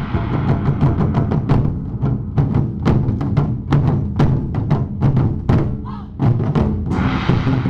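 A wadaiko ensemble of taiko drums playing a fast, driving rhythm, dense with sharp strikes over deep drum booms. The drumming eases briefly near six seconds, then comes back at full force.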